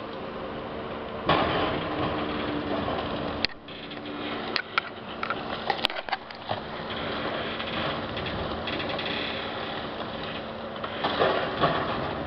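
Demolition excavator's diesel engine running steadily in the distance, with scattered clatter and crunching from broken concrete; louder surges of crunching come about a second in and again near the end.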